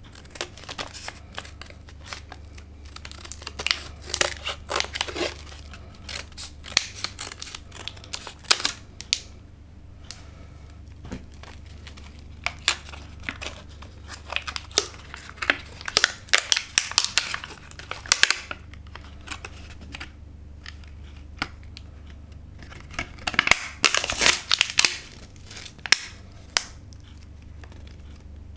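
Battery packaging being opened by hand: crinkling and tearing in three spells of dense crackles, over a faint steady low hum.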